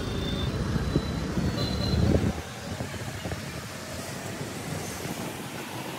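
Road traffic: a loud low rumble of vehicles that drops off sharply about two seconds in, then steadier, quieter street traffic noise.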